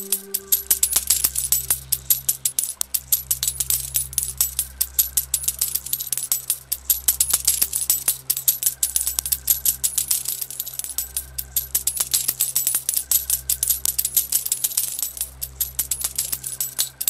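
Coins clinking and jingling in a dense, continuous shower over slow background music with deep, sustained bass notes that change about every two seconds.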